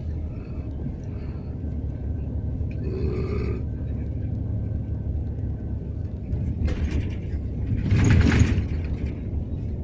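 A sleeping man snoring heavily over the steady rumble of a moving bus, with a few separate snores, the loudest one near the end.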